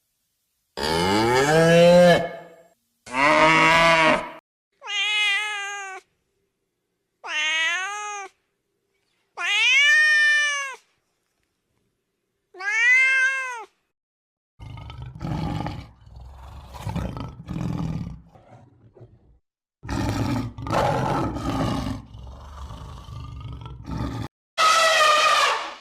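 A run of animal calls. First come several drawn-out cat meows, each rising and then falling in pitch, with short gaps between them. Then rough, noisy growling calls follow in the second half.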